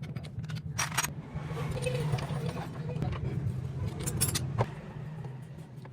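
Metal tools and bike parts clinking and clicking several times during motorcycle repair work, over a steady low hum.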